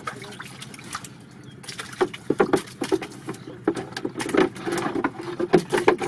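Water splashing and sloshing in a boat's fish well as hands grab at a long eel-like fish, with irregular slaps and knocks against the wooden hull. It gets busier from about two seconds in.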